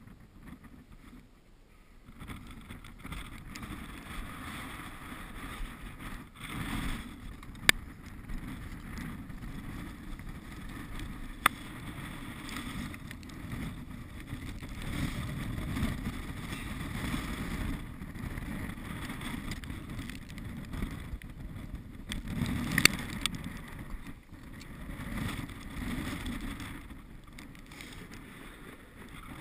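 Wind rumbling on the microphone, swelling and easing, over the crunch and scrape of crampon-shod boots on snow and rock, with a few sharp clicks, the loudest about 23 seconds in.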